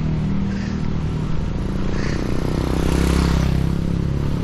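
Passing motor-vehicle traffic: a steady engine hum, swelling about three seconds in as a vehicle goes by close.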